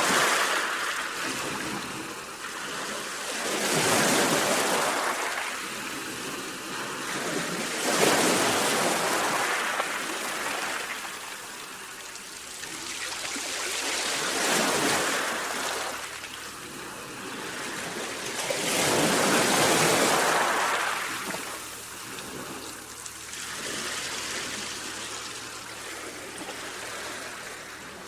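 Sea waves breaking and washing onto the shore: a rushing hiss that swells and falls again every four to six seconds, some surges louder than others.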